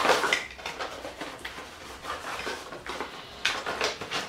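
Irregular rustling and light clattering of cardboard packaging and the things inside it being handled, loudest right at the start and again near the end.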